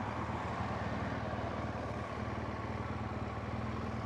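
BMW motorcycle engine running steadily at low revs, an even low pulse with no revving.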